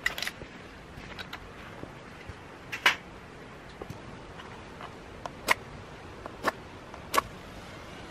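Split firewood knocking and clattering as pieces are stacked in a fire pit: a few sharp wooden clacks, the loudest about three seconds in, with lighter ticks between.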